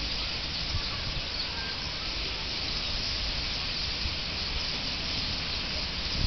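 Massed chatter of a large common starling roost settling into trees at dusk: a steady, dense hiss of countless overlapping calls, with a low rumble underneath.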